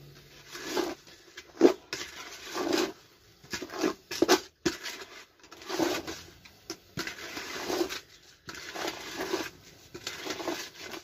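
Muscovy duck hissing: a string of breathy hisses about once a second, with a few sharp knocks among them.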